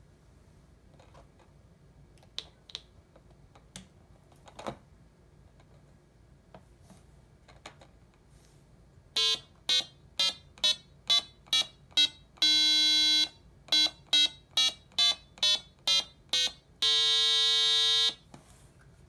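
Small soldered kit electronic piano playing a tune of short, buzzy electronic beeps, about two notes a second, with two longer held notes. Faint clicks come before the notes start, about halfway in.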